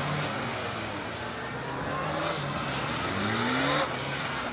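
A large police motorcycle's engine revving up in short bursts and falling back as the bike weaves through a tight slalom; the revs climb twice, the stronger burst about three seconds in, and the throttle is shut off shortly before the end.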